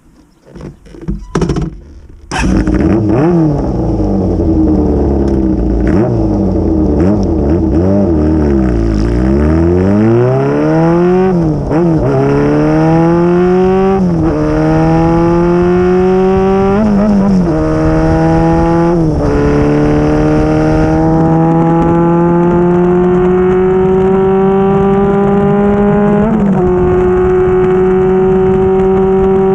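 Kawasaki GPZ400F's inline-four through a MISTY straight-pipe exhaust with a silencer, accelerating through the gears. After a few faint clicks the exhaust comes in loud about two seconds in and rises and falls. Then the pitch climbs and drops sharply at each upshift, about five times, ending in a long, slowly rising pull.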